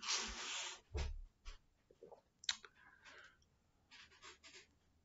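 A short breathy exhale, then a soft dull thump about a second in, followed by a few faint clicks and rustles of a person shifting in his seat.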